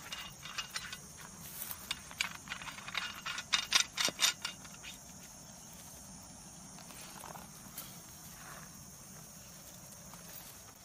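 Quick light metallic clicks and rattles over the first four seconds or so, from handling a folding camping shovel's aluminium-alloy handle and working the compass fitted in its end. After that only a faint steady hiss.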